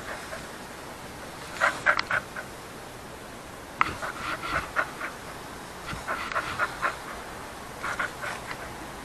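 Dog chewing and tugging a knotted rope toy close to the microphone, with its breathing and mouth sounds coming in clusters of short bursts every second or two.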